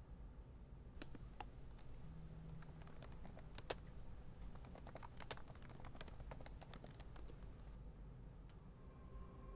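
Typing on a laptop keyboard: quick, irregular, faint key clicks that start about a second in and stop a couple of seconds before the end.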